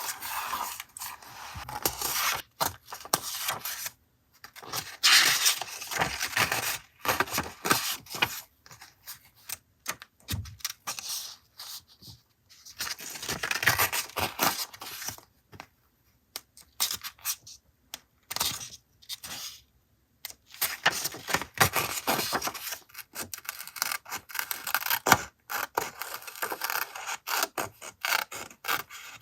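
Paper and stationery handled on a desk while a journal page is collaged: irregular scraping and rustling of paper, with small clicks and brief pauses between spells.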